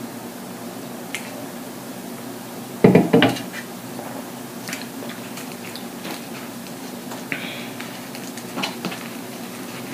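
A drink can set down on a table with a loud knock about three seconds in, over a steady low hum. Soft chewing and light clicks and paper rustles follow.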